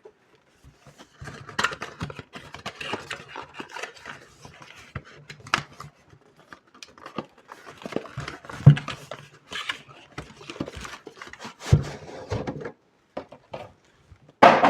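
Hands unboxing a perfume: a cardboard outer box being opened and a leather-covered inner box slid out, giving irregular scraping and rustling with light clicks and a few knocks.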